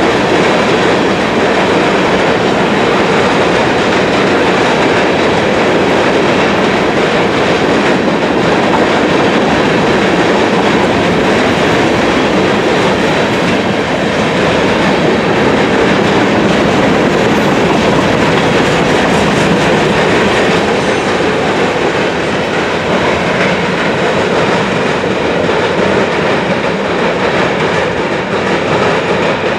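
Freight train of covered hopper cars rolling past: steady loud wheel-and-rail noise from the passing cars, easing slightly near the end as the last car goes by.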